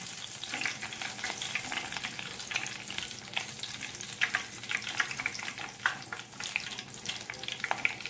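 Curry leaves deep-frying in hot oil inside a wire-mesh strainer: a steady sizzle with frequent crackling pops as the leaves turn crisp.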